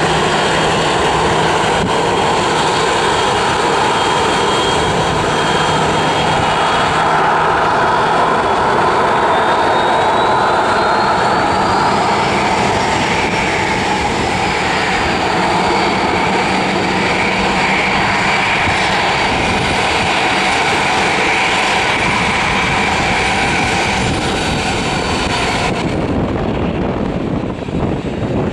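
Boeing 737-700's CFM56-7 turbofan engines running at taxi power: a steady jet whine and rumble, with a high tone that rises and falls back about halfway through. Near the end the highest whine drops away suddenly, leaving a duller rumble.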